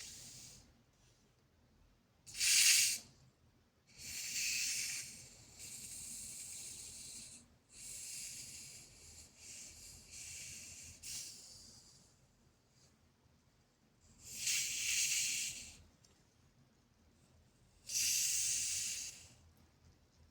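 A string of short airy hisses, about seven of them, each lasting a second or two with pauses between. The sharpest and loudest comes about two and a half seconds in.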